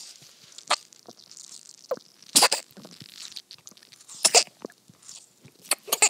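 Newborn baby feeding from a baby bottle: short, wet sucking clicks and swallows, the loudest about two and a half and four seconds in, with two more near the end.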